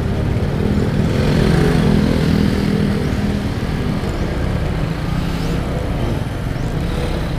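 Honda Click 125i scooter's single-cylinder engine pulling away, its note rising over the first couple of seconds and then holding steady, with wind rumble on the helmet-mounted microphone.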